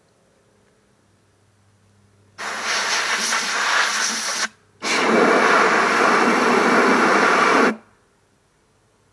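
Two bursts of compressed air from a blow gun, the first about two seconds long and the second about three, with a short gap between them. The air is blown through a push mower's fuel tank that is not draining as it should.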